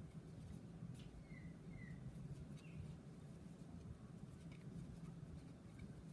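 Faint ticks and small squeaks of a fine crochet hook pulling cotton thread through stitches, over a low steady hum.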